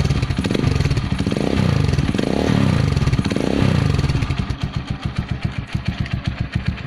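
Motorcycle exhaust through an Akrapovic carbon fiber muffler fitted with only its silencer insert: the engine is idling, is blipped up and back down four times in the first four seconds, then settles back to idle. With the silencer alone the exhaust note has a whistling quality.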